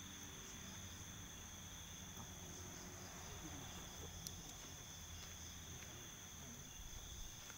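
Crickets trilling steadily in a night insect chorus, as two unbroken high-pitched tones, over a faint low rumble. A single sharp click about four seconds in.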